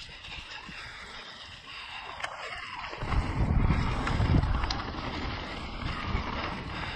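Mountain bike riding down a dirt trail: wind buffeting the camera microphone over the rumble and rattle of tyres and frame. It is quieter for the first three seconds, then the rumble grows louder, with a few sharp knocks.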